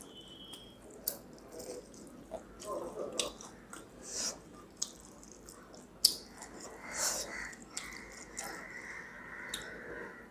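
Close-miked eating: chewing and wet mouth clicks of rice and fried pakoras being eaten, with a sharp click about six seconds in and a faint steady high tone in the second half.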